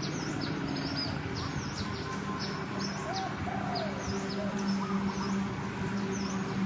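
Birds chirping: many short, quick, high chirps in quick succession, with a few lower arching calls. A steady low hum comes in about two seconds in.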